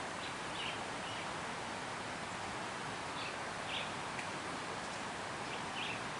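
Short bird chirps, a few scattered calls, over a steady faint outdoor hiss.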